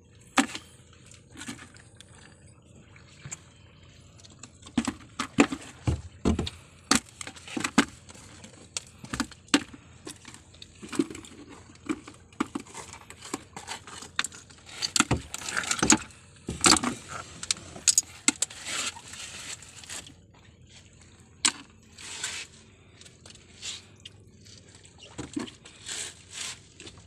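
Small fish dropping into a plastic tub of water and flapping there, with irregular wet slaps, splashes and knocks against the plastic.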